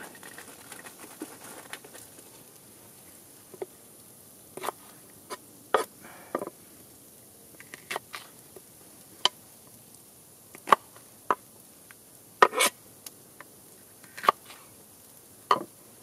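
Morakniv knife slicing mini sweet peppers on a wooden cutting board: about fifteen sharp, irregular knocks of the blade striking the board.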